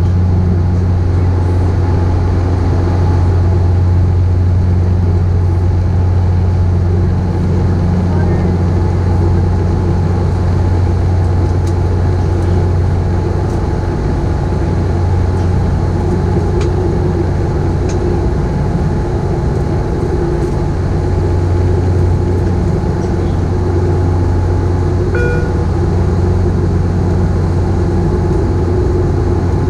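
Steady propeller drone inside the cabin of a De Havilland Dash 8 Q400 turboprop in flight: a deep, even hum from its Pratt & Whitney PW150A engines and six-bladed propellers, with rushing airflow noise over it.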